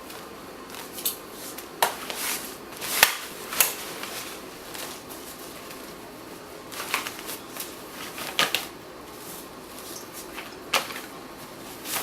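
Scattered sharp clicks and knocks from a co-sleeper crib's frame and latches being pushed and worked while its jammed side rails refuse to fold.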